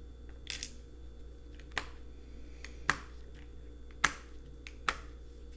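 Plastic pill organizer clicking as its compartment lids are snapped shut: five sharp clicks, roughly a second apart.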